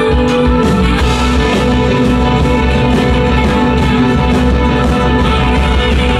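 A band playing live with electric guitars and saxophone over a steady beat, with held notes running through the passage and no singing.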